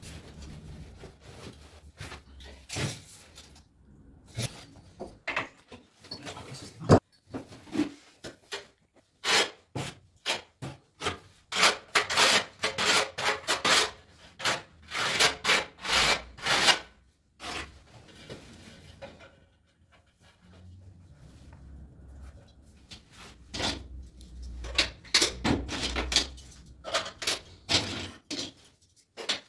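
Trowel scraping tile adhesive across the back of a wall tile in a run of quick strokes, with scattered knocks and taps of tile and tools, one sharp knock early on.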